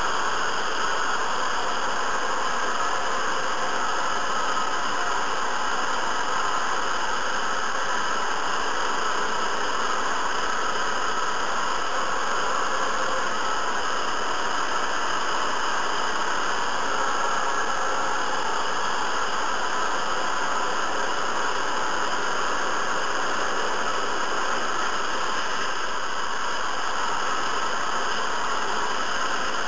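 Hair dryer running steadily, a constant, even rush of air with no change in speed.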